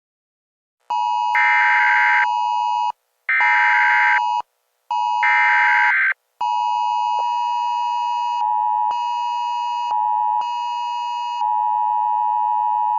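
Emergency Alert System tones: three short bursts of warbling data-header tones, about a second each, then a long steady electronic attention tone that signals the start of an alert.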